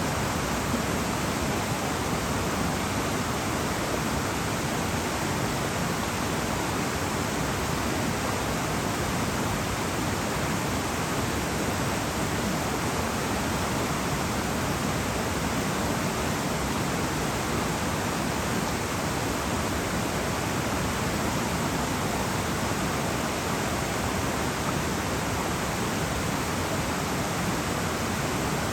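River water flowing steadily: a constant, unchanging rushing noise.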